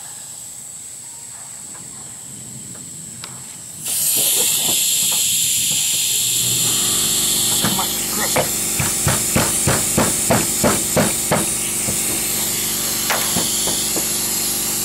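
Air-powered pop-rivet gun being cycled. A steady hiss of air starts suddenly about four seconds in. From about eight seconds come runs of sharp clacks, about three a second, as the jaws release and grab another bite on the rivet's stem. The gun doesn't do a complete pull, so it takes several strokes to set each rivet.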